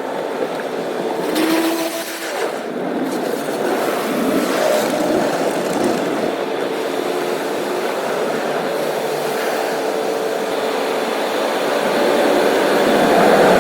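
Car driving on the road, heard from inside the cabin: a steady rush of road and engine noise that gets a little louder near the end.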